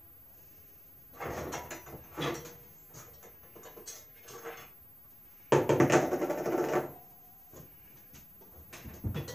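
A cart wheel being worked on and off the end of a steel axle: the hub and washers knock and rattle against the axle. There is a burst of clatter about a second in and a louder, longer rattle past the middle.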